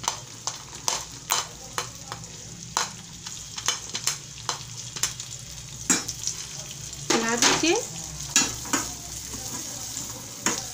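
Fresh green peas sizzling in hot oil in a stainless steel pan, as they are tipped in and sautéed. A slotted steel spoon scrapes and clinks irregularly against the pan as they are stirred.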